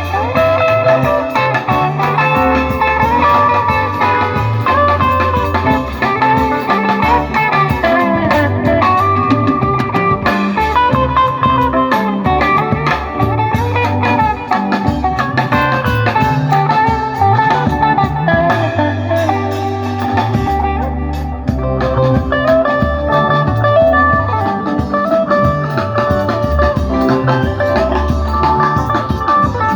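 A band playing: guitar lines over bass and drums, loud and steady throughout.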